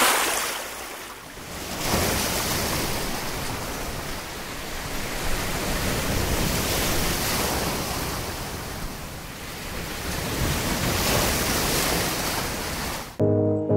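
Sea surf breaking and washing on a beach, swelling and falling back several times. It cuts off abruptly near the end as music starts.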